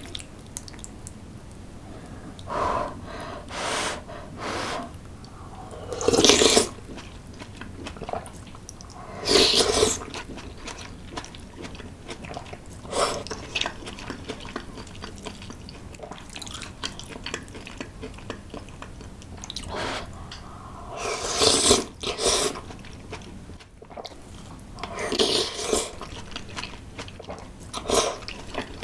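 Close-miked eating sounds of a Korean meal of loach soup with rice, grilled beef patties and kimchi: chewing, with about seven louder, short eating noises spread irregularly through.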